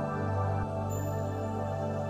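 Soft new-age background music with sustained held tones.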